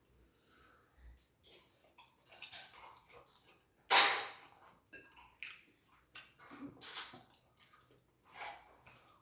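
Wet eating sounds of fufu and egusi soup: chewing, smacking and squishing in short irregular bursts, the loudest about four seconds in.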